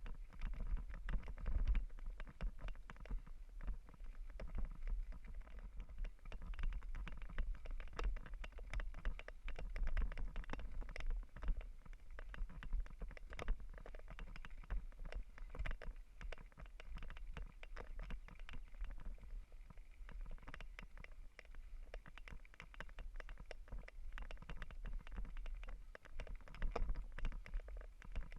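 Mountain bike riding over a rough off-road trail: a dense, irregular rattling and clicking over a steady low rumble.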